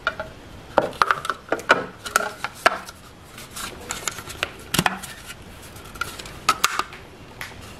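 Irregular sharp plastic clicks and knocks, some in quick little clusters, as zip ties are fed through a 3D-printed plastic gear and filament spool and pulled tight while the spool is turned in the hands.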